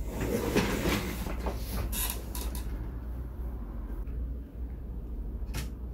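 Handling noise on a workbench as a power supply cable and power button are plugged into a bare Xbox One S motherboard: a rustle at first, then a few sharp clicks, over a steady low hum.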